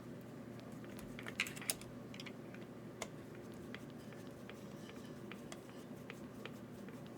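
Scattered small clicks and taps of tools and small parts being handled while fitting an aluminum camber link to an RC car's front suspension, with a few louder clicks about a second and a half in, over a steady low hum.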